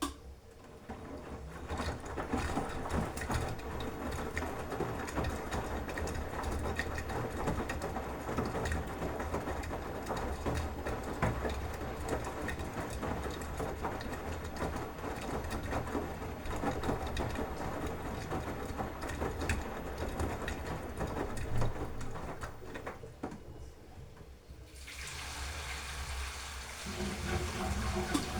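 Beko washing machine taking in water: a steady rush of water with a low hum underneath. The rush dips briefly about three-quarters of the way through, then carries on.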